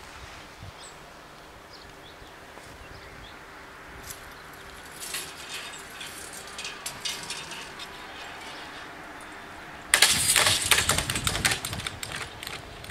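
Railway level-crossing barriers lowering: a faint steady motor hum with scattered clicks, then a loud crackling, rattling noise for about two and a half seconds near the end.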